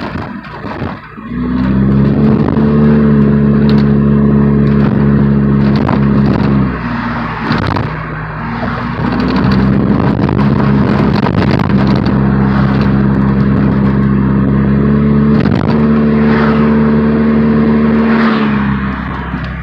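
The engine of a straight-piped Chevy Cavalier with no exhaust, run up and held at a steady pitch for several seconds at a time. It drops back between three long holds, with crackles from the open pipe throughout.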